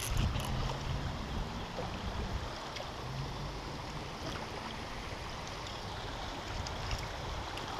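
Steady rush of flowing creek water running high, with a low rumble in the first couple of seconds.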